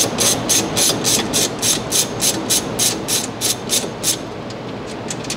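Hand ratchet wrench being swung back and forth on the chassis brace bolts, its pawl clicking in quick rhythmic bursts of about four a second, stopping about four seconds in.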